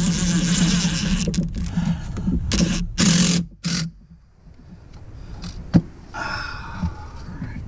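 DeWalt cordless driver running under the trigger, driving a fastener on the engine: one run of about a second and a half, then three short bursts around the three-second mark, then it stops. A single sharp click follows about six seconds in.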